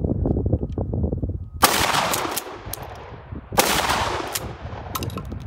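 Two shots from a 12-gauge pump-action shotgun firing full-power 2¾-inch 00 buckshot, about two seconds apart, each followed by a long echo across the range. Sharp clacks of the pump being worked come after each shot.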